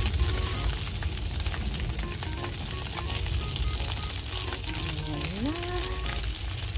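Food sizzling on the grate of a Weber gas grill: a steady crackling hiss full of small pops. Soft background music plays underneath, with a rising note about five seconds in.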